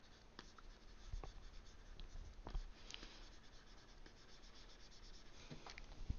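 Faint scratching and light ticks of a stylus moving over a drawing tablet.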